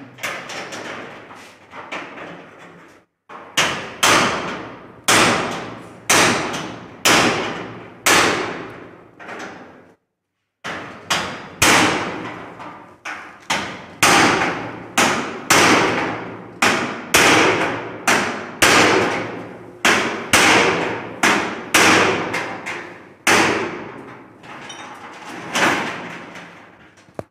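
Hand hammer striking over and over, roughly one blow a second, with a short pause about ten seconds in and then a quicker run of blows. Each blow rings briefly.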